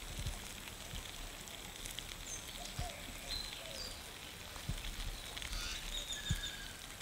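Cooking oil sizzling and crackling in a pan over the cooking fire, frying food, with a few soft knocks.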